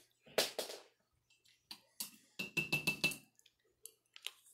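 Soft, scattered clicks and knocks of a utensil and packaging being handled at a table, with a denser run of clicks and a brief squeak about two and a half seconds in.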